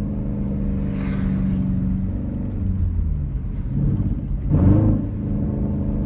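Jeep Grand Cherokee's 5.7-litre Hemi V8 heard from inside the cabin, running steadily while driving, with a brief swell in the engine note about four and a half seconds in.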